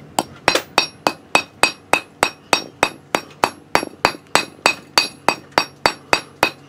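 Hammer tapping a reused grease seal into a Ford F-150 front wheel hub behind the back bearing: quick, even taps, about three or four a second, each with a short metallic ring.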